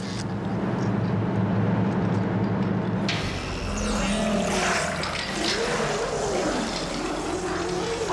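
Water churning and gurgling in a drowning tank over a low steady hum, turning noisier and more turbulent about three seconds in, with wavering gurgling tones.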